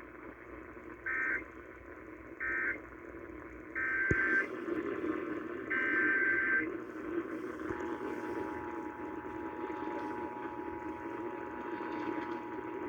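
Emergency Alert System broadcast tones: four short bursts of SAME digital data tones in the first seven seconds. Then the steady two-tone EAS attention signal starts at about eight seconds and holds.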